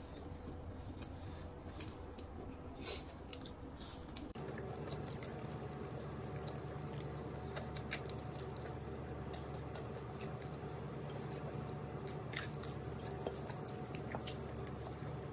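A person eating fried chicken close to the microphone: chewing, wet mouth smacks and bites, with meat being pulled from the bone by hand, over a steady low hum that changes tone abruptly about four seconds in.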